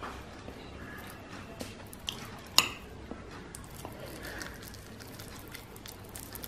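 A metal spoon clinking against a plate while chicken pilau rice is mixed, with one sharp clink about two and a half seconds in and a smaller one just before it. Around it, faint squishing of rice being worked by hand.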